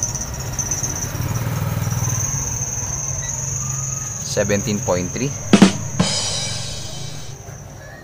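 Insects buzzing steadily at a high pitch over a low hum, with a few short calls about four seconds in and a sharp click a little after.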